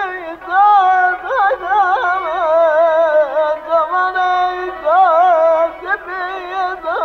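Azerbaijani mugham singing by a male khanende: a high, sustained vocal line full of quick trills and ornamented turns in the tahrir style. It is heard on an old, band-limited recording.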